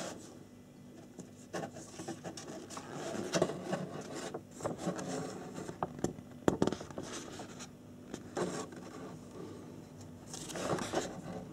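Paper rustling as a model-kit instruction booklet is handled and its pages turned, with scattered short rustles and taps and a longer rustle near the end.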